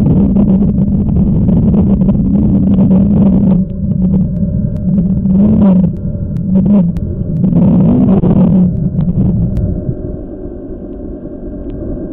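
Muffled underwater rumble of a swimming pool picked up by a submerged camera: a steady low hum with a few louder swells a few seconds in, growing quieter near the end.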